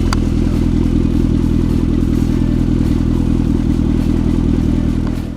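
A car engine idling steadily and loudly, heard close to its exhaust with a fast, even pulsing, until it cuts off suddenly at the end.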